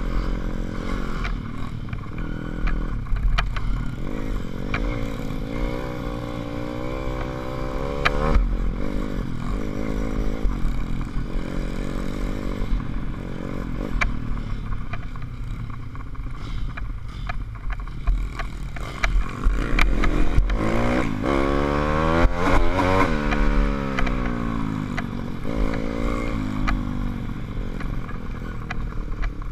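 SSR150 pit bike's single-cylinder four-stroke engine running under throttle, its pitch rising and falling with the throttle and gear changes, climbing hardest about two-thirds of the way through. Low rumble and scattered knocks as the bike runs over the rough dirt trail.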